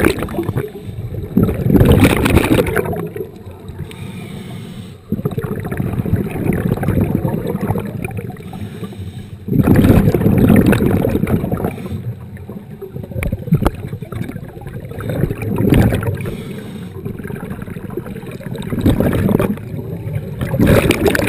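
Muffled underwater noise picked up by a camera in a waterproof housing: water rushing and bubbling in irregular surges a few seconds long, then easing off between them.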